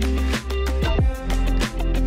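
Background electronic music with a steady beat and a deep bass that sweeps downward about every second and a half.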